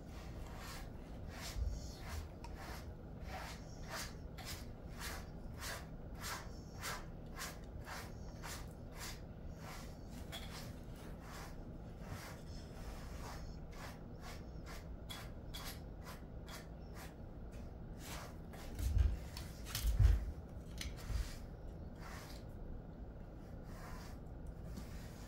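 A pet brush raked through a Jindo mix's thick coat in short, brisk strokes, about two a second. A couple of dull thumps come about two-thirds of the way through.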